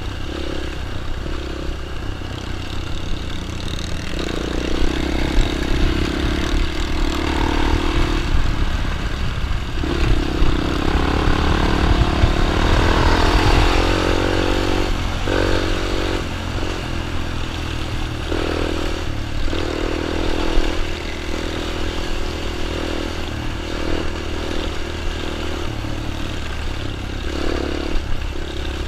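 Small child's dirt bike engine running and revving up and down, the pitch rising and falling as it rides, loudest about halfway through.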